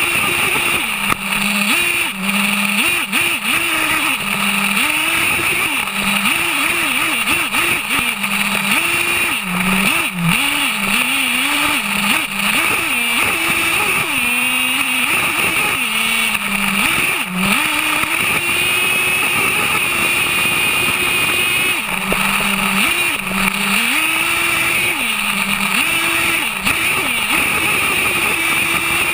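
HPI Savage X 4.6 nitro RC monster truck's small two-stroke glow engine revving up and down over and over as it is driven, with quick throttle blips and short stretches held at steady high revs. Heard up close from a camera mounted on the truck.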